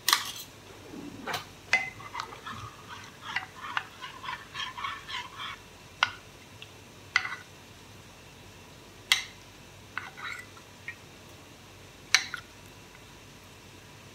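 A metal spoon clinking against a stainless steel pan and a ceramic bowl: a scattered series of sharp clinks, with a quick run of small ringing clinks early on. Cutlery rattles in a drawer right at the start.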